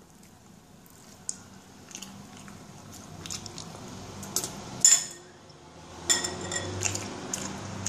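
A metal fork scraping and clinking against a bowl as salad is picked at, with scattered light clicks. The loudest clink comes just before five seconds, and a cluster of clinks about six seconds in as the fork is laid on the bowl's rim.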